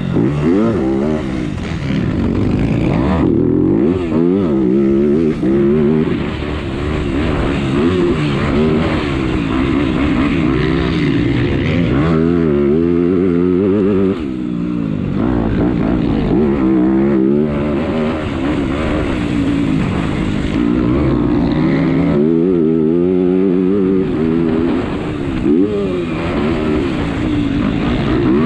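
MX2-class motocross bike engine heard from onboard while racing, its pitch rising and falling over and over as the rider opens the throttle, shifts and backs off between corners and jumps.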